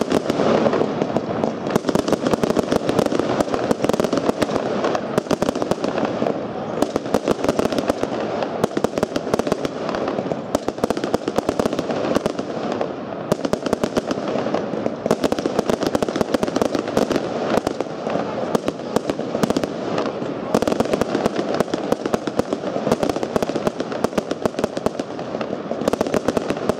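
Thunder Kingdom Big Mc Thunder fireworks cake firing: a dense, continuous run of rapid bangs and pops, many a second, as its shots burst overhead.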